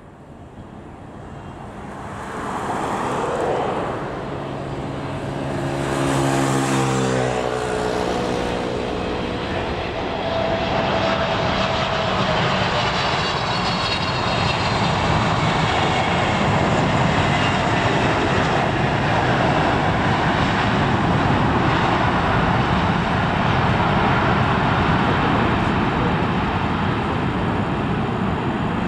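Jet engines of a Boeing 777 freighter (GE90 turbofans) landing. The sound grows louder on approach, then a whine falls in pitch as the aircraft passes, about six to seven seconds in. A steady loud jet rumble follows through touchdown and rollout, with spoilers deployed.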